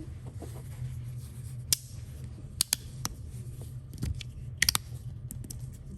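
Fidget slider with Ultem plates being worked by hand, giving a handful of sharp, irregular clicks, with two or three close together in places.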